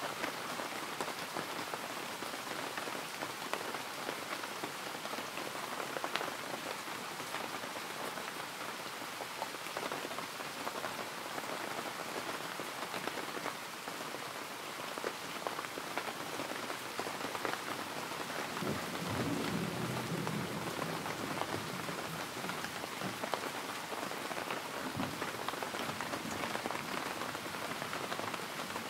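Steady rain falling, with a low rumble about two-thirds of the way through.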